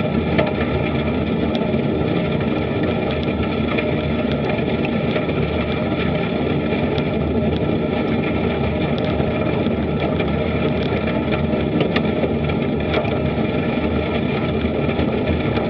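Bicycle tyres rolling over a gravel path, picked up by a Garmin VIRB action camera riding on the bike: a steady rumble with small ticks of stones scattered through it.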